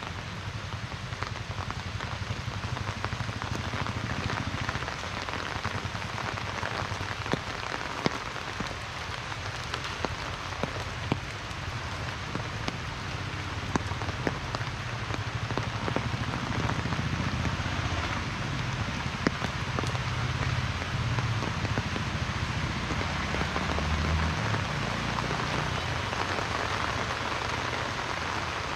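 Heavy monsoon rain falling steadily, with scattered louder drop hits and a low rumble underneath; the rain grows a little heavier about halfway through.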